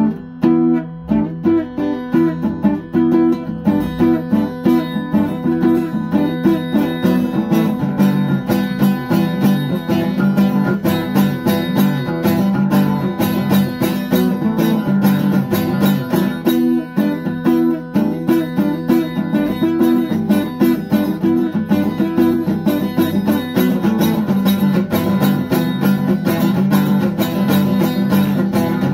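Acoustic guitar strummed in a steady rhythm, chords ringing on each stroke.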